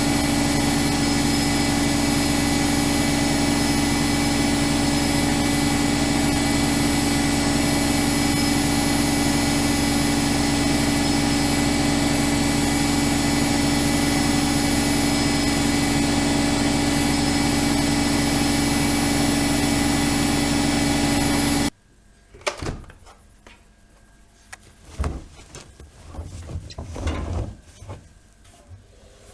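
Bauknecht WAK 5750 washing machine running steadily at speed, its motor fitted with new carbon brushes, a constant hum and whine. About 22 seconds in the sound cuts off abruptly, and a few faint knocks and clicks follow.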